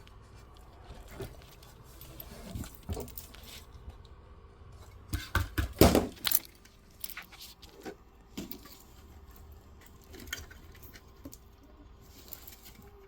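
3D-printed plastic feet and the 3D printer's body knocking and clicking as the feet are fitted under the printer, with a cluster of louder knocks about five to six seconds in.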